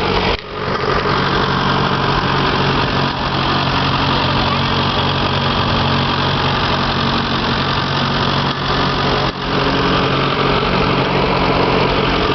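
1939 Case VI tractor engine idling steadily just after a cold start, with its piston rings badly worn. The sound drops briefly twice, once shortly after the start and once about nine seconds in.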